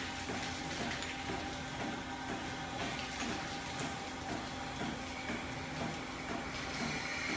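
Steady machinery noise with a constant hum and a rushing, water-like wash, with a higher steady tone joining about five seconds in.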